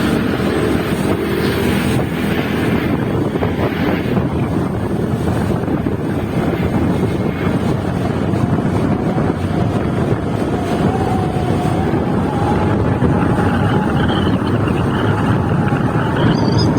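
Loud, steady wind noise on the microphone, with a faint tone slowly rising in pitch through the second half.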